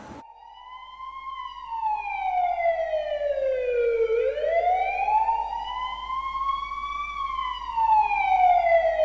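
Emergency vehicle siren wailing slowly. Its pitch falls and rises over about six seconds per cycle, and it swells up from faint over the first second or two.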